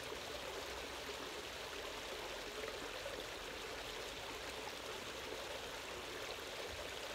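Small waterfall on a rocky creek, with water running steadily over the rocks.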